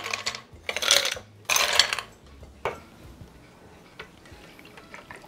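Ice cubes clattering as a metal scoop digs into a glass bowl of ice and tips them into a drinking glass: two short rattling clatters about a second in, then a single sharp clink, followed by a few faint ticks.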